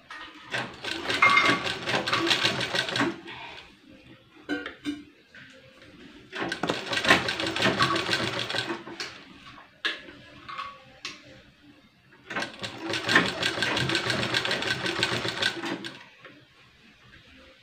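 Limbad sewing machine stitching a fabric piping strip onto a blouse neckline, in three runs of about three seconds each with short pauses between them.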